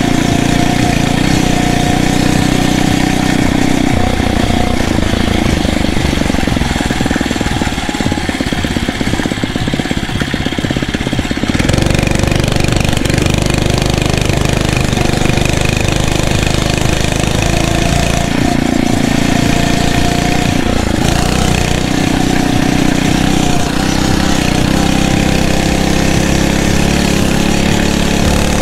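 Small 79cc four-stroke engine of a Phatmoto Rover motorized bicycle running under load while being ridden off road, its speed rising and falling. It picks up revs about twelve seconds in and climbs again near the end.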